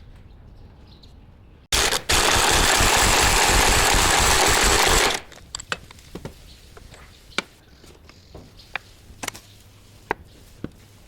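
A power tool runs in one loud burst of about three and a half seconds with a fast rapid hammering rhythm, then cuts off suddenly. Scattered sharp metal taps and clinks follow.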